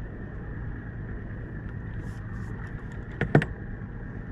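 A boat engine idling steadily, with one sharp knock about three seconds in.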